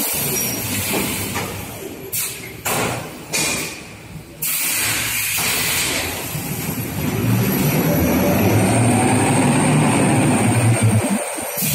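Toilet paper rewinding machine running, a steady mechanical noise with hiss over a low hum. It drops quieter for a couple of seconds with a few short surges, then comes back up and stays steady.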